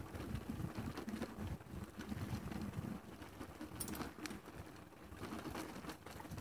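Wooden plank boardwalk being crossed: irregular low knocks and thuds from the loose boards, with a faint rattle about four seconds in.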